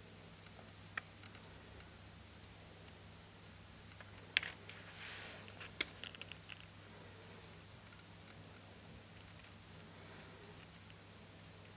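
Lop-eared rabbit grooming its face with its front paws: scattered faint clicks, a sharper click and a brief rustle about four seconds in, then a quick run of small ticks. A steady low hum lies underneath.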